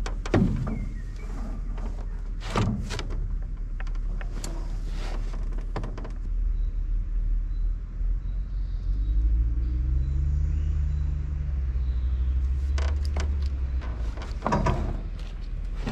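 Fishing tackle handled in a boat: scattered clicks and knocks over a steady low rumble. A low engine-like drone swells and fades about midway.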